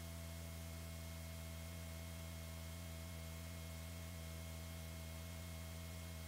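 Steady low hum with a few faint constant higher tones over a light hiss, unchanging throughout, with no other sound.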